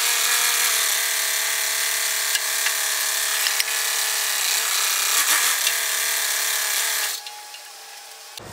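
Loader-backhoe tractor engine running steadily while the front loader's hydraulics lower a slung load, its pitch wavering slightly. The sound drops sharply about seven seconds in.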